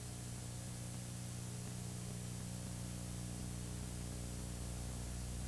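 Steady low electrical hum with a stack of even overtones, over a faint hiss: recording or tape-line noise with no other sound on it. It cuts off suddenly near the end.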